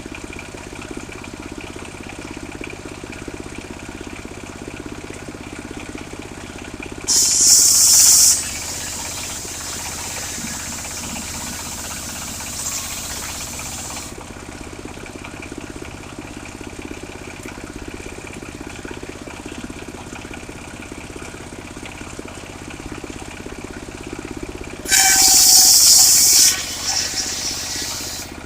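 Engine of a mobile circular sawmill running steadily, with two loud bursts as the circular saw blade cuts into a large log, about seven seconds in and again near the end. Each burst lasts about a second and a half and fades into a quieter hiss.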